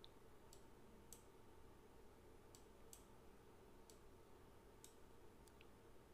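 Near silence with faint, irregular computer mouse clicks, about eight over six seconds.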